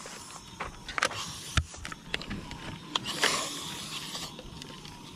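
Gear being handled by hand: scattered clicks and knocks, and about three seconds in a rustling hiss lasting about a second.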